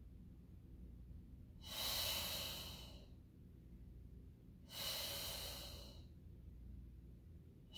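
A woman's audible breaths during an abdominal Pilates exercise: two long, hissing exhales about three seconds apart, with a third starting near the end.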